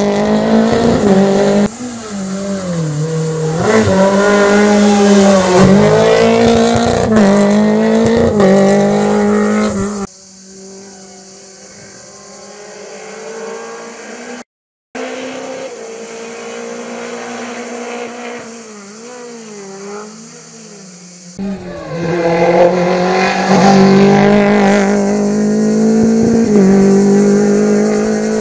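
Renault Clio Group A rally car's four-cylinder engine revving hard on a stage, its pitch climbing and falling again and again with gear changes and lifts into corners. Several passes are cut together: loud close ones, and a quieter, more distant stretch in the middle with a brief break in the sound.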